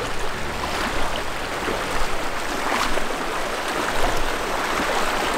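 River water flowing, a steady rushing with a few faint small splashes.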